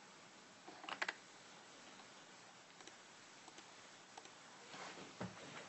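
Faint clicking of computer keys over quiet room tone: a quick cluster of three or four clicks about a second in, then a few scattered single taps.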